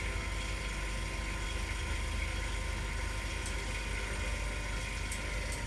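Steady low machine hum with a faint constant whine, from equipment running in a repair workshop.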